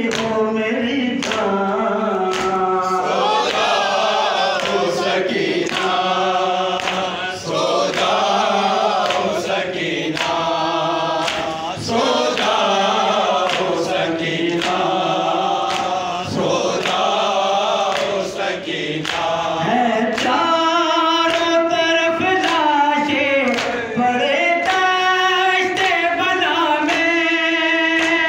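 Male reciter singing a noha, a Shia lament, through a microphone, with other voices joining in chorus. A steady rhythm of chest-beating slaps (matam) keeps time.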